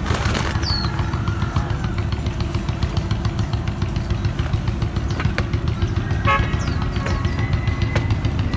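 Steady low outdoor rumble, with a few short bird chirps and a brief tooting beep about six seconds in.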